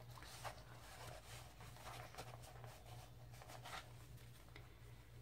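Near silence: faint rustles of paper pages and a card being handled, over a low steady hum.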